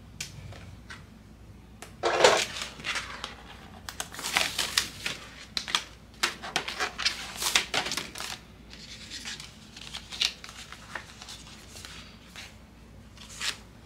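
Paper and cardstock being handled: irregular rustling, tapping and clicking, with a louder knock about two seconds in.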